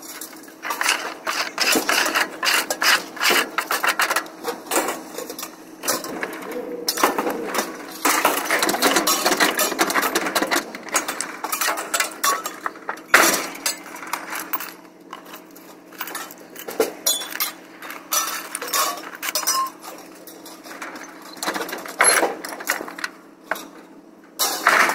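Scrap metal being unloaded by hand off a trailer: repeated clanks, clinks and rattles of metal pieces knocking together and hitting the trailer deck, with one louder bang about thirteen seconds in.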